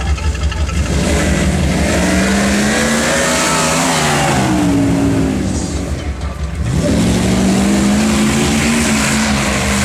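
Jeep Grand Cherokee engine revving under load on a muddy offroad course. The pitch climbs over the first few seconds and falls back, drops away briefly about six seconds in, then climbs again and holds high.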